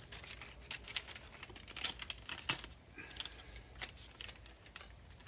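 Silver repair tape being handled and wrapped around an ATV muffler: scattered sharp crinkles and clicks, with a brief squeak about three seconds in.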